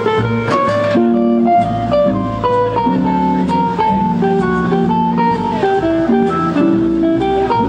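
Background music: a plucked guitar melody over bass notes.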